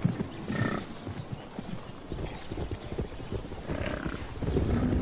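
Many hooves pounding the ground as a herd of large hoofed animals runs, a rapid, irregular patter of knocks.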